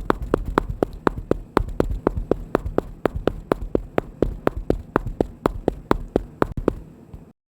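Running footsteps, sharp even steps at about four a second, stopping suddenly near the end.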